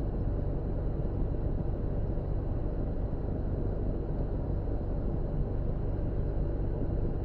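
Steady background noise with a low electrical-sounding hum, even throughout, with no distinct clicks or knocks.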